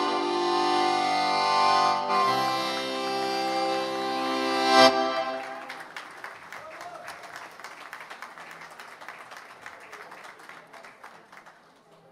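Piano accordion holding loud sustained final chords, one change about two seconds in, ending with a sharp accented cut-off just before five seconds in. Audience applause follows and fades out.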